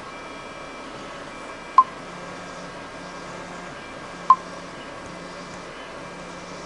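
Tronxy 500 3D printer's stepper motors whining in short on-off runs as it prints. Two short, sharp beeps about two and a half seconds apart stand out above it.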